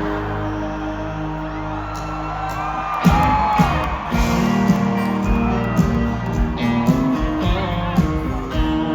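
Live country band playing an instrumental break between sung lines. A held chord rings for about three seconds, then the drums and full band kick back in with a guitar lick.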